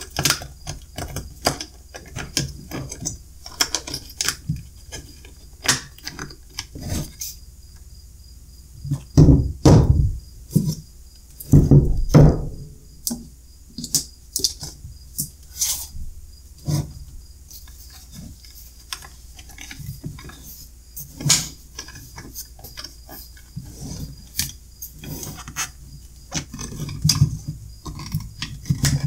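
Hands working with plastic-cased 12 V sealed lead-acid batteries and their wire connectors: scattered clicks and taps, with louder knocks about nine and twelve seconds in.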